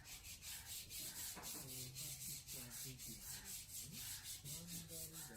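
Rhythmic rubbing noise, about six strokes a second, with short faint pitched sounds underneath.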